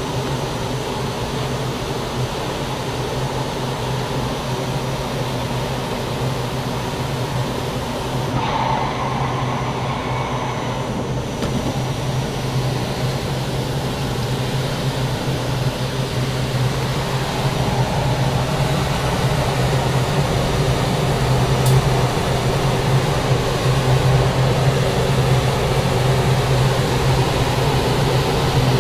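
Large ventilation fan running steadily: a low hum over a broad rush of air.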